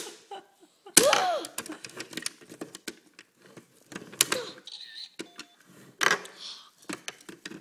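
Plastic clicks and clatter of a toy telephone being handled, its buttons pressed and parts flipped, with a short burst of a child's voice about a second in and a brief beep around the middle.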